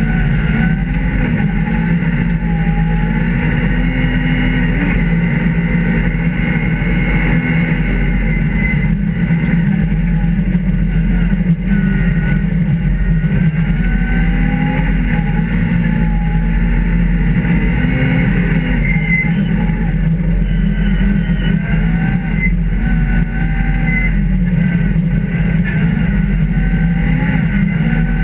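Rally car engine heard from inside the cabin at speed, its revs rising and falling again and again as the driver works the throttle, over steady road noise.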